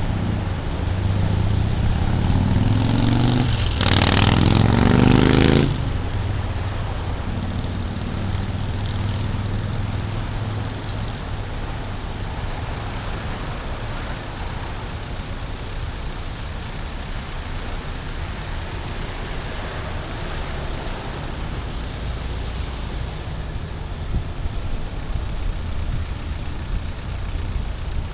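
A gasser drag car's engine running, revved hard once about four seconds in with its pitch rising, then dropping back; after that it runs on quieter and fades into steady background noise.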